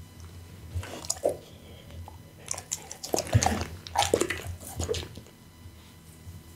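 Pit bull licking food scraps off a tabletop and chewing, a run of short wet licks and smacks that is busiest in the middle.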